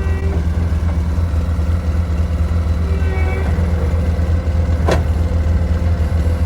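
Bobcat skid steer engine running steadily as the machine works dirt, with a single sharp clank about five seconds in.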